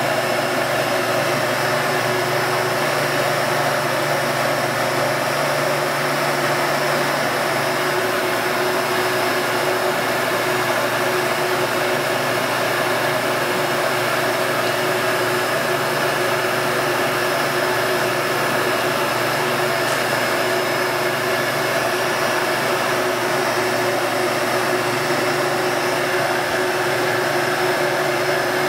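Hair dryer blowing hot air, running steadily with an even rush of air and a constant motor whine.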